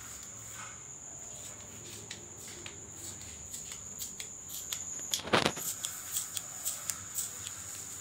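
Masking tape being peeled back by hand from the edge of a painted wooden door frame: a run of small crackles and ticks, with one longer, louder rip a little after five seconds in.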